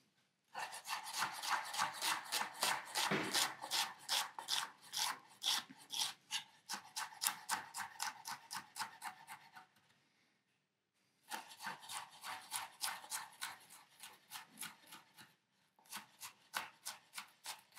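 Chef's knife finely mincing onion on a wooden cutting board: quick, even chopping strokes, several a second, in three runs with brief pauses about ten and fifteen seconds in.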